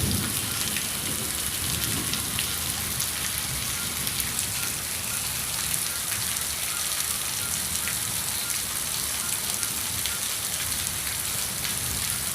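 Heavy rain falling steadily, a dense hiss of many small drop impacts. A brief low rumble sounds right at the start.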